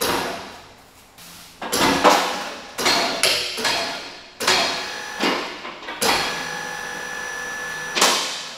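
A string of sharp metallic clanks and knocks, about one or two a second, each ringing on and echoing in a large workshop. One clank near the end leaves a metal ring that holds for about two seconds.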